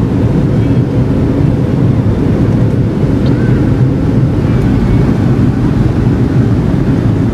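Loud, steady low rumble inside an airliner cabin: jet engine noise and the rumble of the plane rolling fast along the runway.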